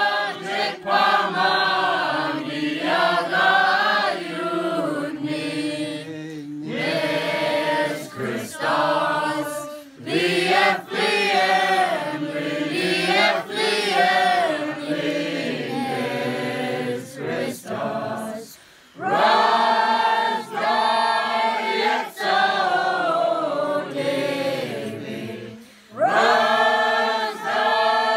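Mixed group of men, women and children singing a Slaviq (Russian Orthodox Christmas) carol together, unaccompanied. The singing comes in phrases of a few seconds, with short breaks between them.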